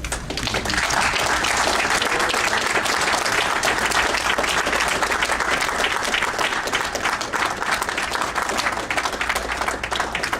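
An audience applauding, a dense steady mass of clapping that builds within the first second and starts to thin out near the end.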